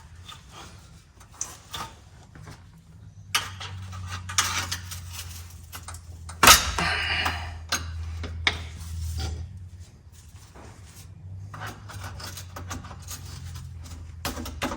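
Scattered metal clinks and knocks from exhaust pipe and tools being handled, with one loud clank about six and a half seconds in, over a steady low hum.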